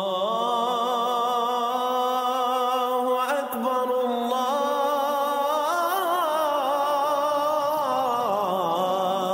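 Intro music: a single voice singing long held notes with a wavering vibrato, moving to new pitches about three seconds in and again around six seconds.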